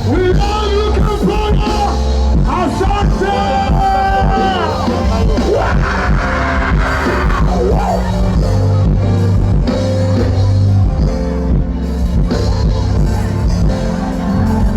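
Live band music played loud through a concert sound system: heavy bass and drums under a sliding vocal melody.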